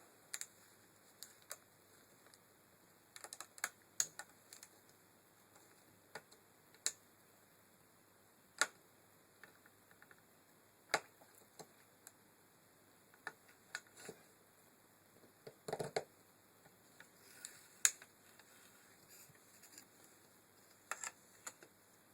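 Irregular light clicks and taps, singly and in small clusters, with a short denser clatter about sixteen seconds in, like small parts or tools being handled.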